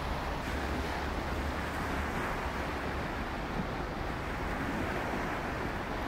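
Small waves lapping and washing over a muddy river shore as a steady hiss, with wind rumbling on the microphone, strongest in the first couple of seconds.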